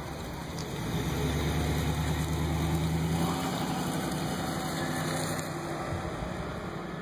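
Engine of a car or van running at low speed close by, swelling about a second in and easing off after a few seconds.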